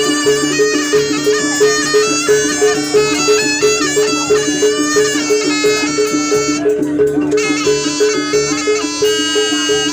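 Live Jaranan music: a reedy shawm (slompret) plays a winding melody over a steady two-note percussion pulse of about four beats a second.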